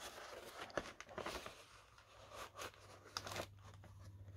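Faint rustling and small clicks of cardboard packaging being handled as a kit's contents are drawn out of the box.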